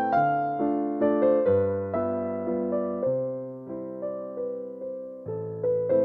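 Background piano music: a slow melody of struck notes, each fading away, over low bass notes that change every second or two.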